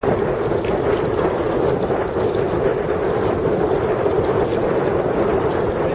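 Steady rushing noise of a boat under way on the water, unbroken throughout.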